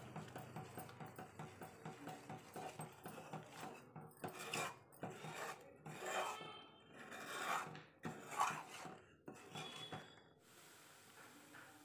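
Steel spoon scraping and stirring thick Mysore pak batter in a steel pan: quick strokes about four a second at first, then slower, louder sweeps that stop about ten seconds in.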